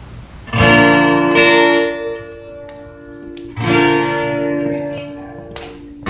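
Guitar chords strummed and left to ring out: one about half a second in, another just after, and a third at about three and a half seconds.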